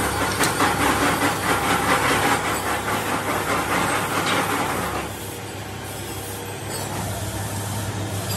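Workshop machinery running: a loud, grainy hiss-like noise that drops off about five seconds in, leaving a steady low machine hum.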